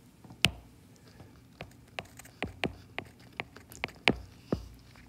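Stylus tip tapping and clicking on a tablet screen while handwriting: about fifteen sharp, irregular ticks, the sharpest about half a second in.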